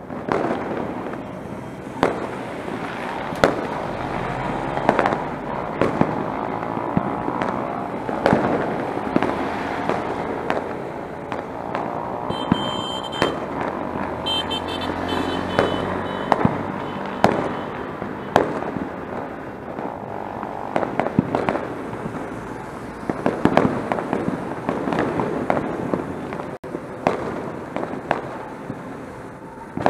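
Firecrackers and fireworks going off all around: a dense, continuous crackle broken by many sharp, loud bangs at uneven intervals.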